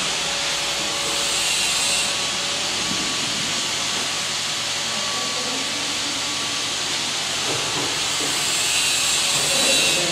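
Steady hissing noise.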